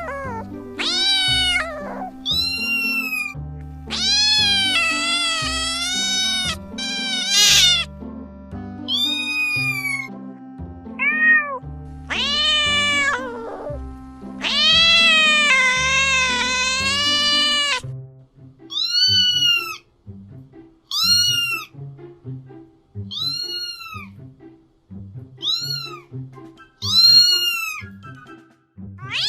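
A domestic cat meowing repeatedly over background music: long drawn-out meows that rise and fall in pitch, then from about two-thirds through a run of short meows about one a second.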